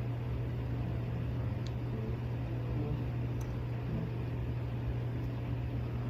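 Steady low background hum with an even hiss and a few faint ticks.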